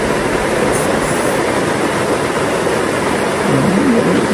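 River water rushing, a loud steady hiss.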